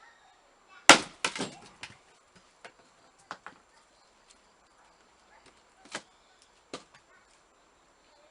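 A blacksmith-forged axe strikes and splits a piece of firewood with one loud, sharp crack about a second in, followed at once by a brief clatter of the split pieces. A few lighter wooden knocks follow at scattered moments afterwards.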